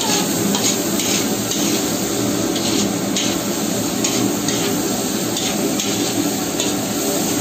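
A metal spatula stirring and scraping food around a large iron karahi in short, irregular strokes about once or twice a second, over a steady roar from the gas burner and the sizzle of frying.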